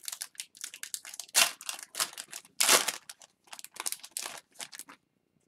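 Foil trading card pack being torn open and crinkled by hand: a run of sharp crackling rustles, loudest about a second and a half in and again near three seconds, stopping about five seconds in.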